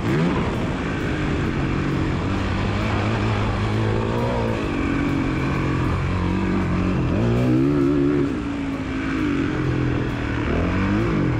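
Dirt bike engine heard from on board while riding, its pitch rising and falling again and again as the throttle opens and closes through gear changes. It climbs to a high rev about eight seconds in, then drops back.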